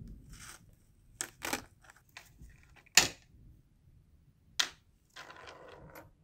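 Sharp metallic clicks and taps as the recoil spring of a rusty metal toy Colt 1911 is worked off its guide rod and set down on a wooden workbench. The loudest click comes about three seconds in, and a short scraping rustle follows near the end.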